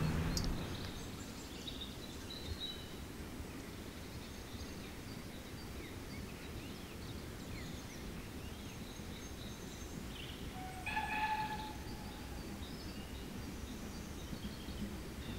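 Faint open-air background: a low rumble like wind on the microphone, with scattered bird chirps. About eleven seconds in, a short tonal call, steady in pitch with several overtones, stands out briefly.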